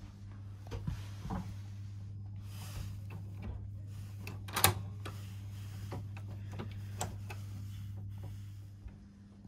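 Sleeping-car compartment door locks being handled: small metallic clicks and one sharp click about halfway through as a lock is worked, over a steady low hum that stops near the end.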